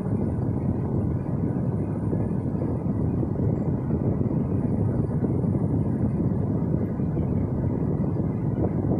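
Steady rushing air noise from a 2004 Pontiac GTO's air conditioning blower running in the cabin.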